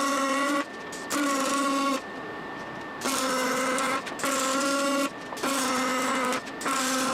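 A machine buzzing at one steady pitch in repeated bursts of about a second each, with a crackly hiss over the top and short pauses between bursts.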